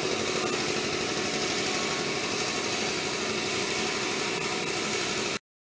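Air compressor for spray painting running steadily, a motor hum under a strong hiss of air, cut off abruptly near the end.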